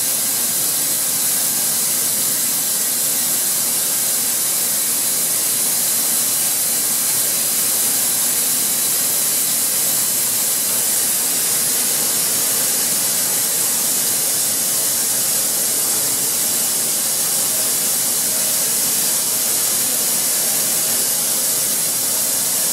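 A loud, steady hiss with no tone in it, heaviest in the high range, that starts and cuts off abruptly.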